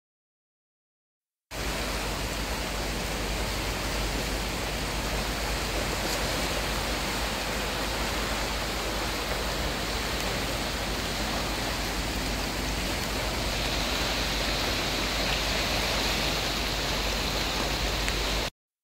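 A flood-swollen river rushing in a steady roar of water, brown and high from storm rain. It starts abruptly about a second and a half in and cuts off suddenly just before the end.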